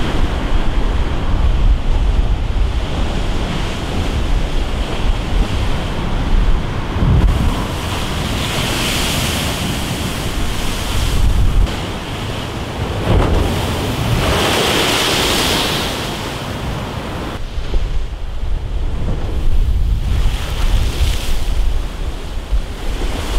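Storm waves crashing and churning against a concrete seawall, with strong wind buffeting the microphone. Two bigger waves break with a louder rush of spray, about a third and about two-thirds of the way in.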